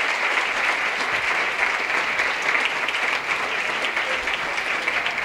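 Audience applauding at the close of a live song recording: dense, steady clapping.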